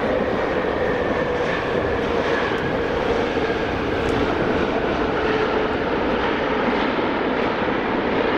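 Airbus A380 on its landing rollout, its Rolls-Royce Trent 900 jet engines making a loud, steady rush with a whine that slowly falls in pitch as the airliner slows on the runway.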